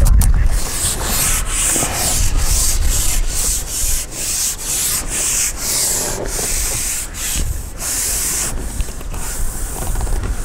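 Wind rustling the reeds in uneven hissing rushes with short breaks between them, over a low rumble of wind on the microphone.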